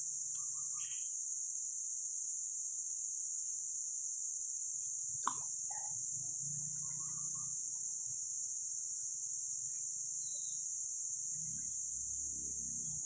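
Insects singing in a steady high-pitched drone, with a single sharp click about five seconds in.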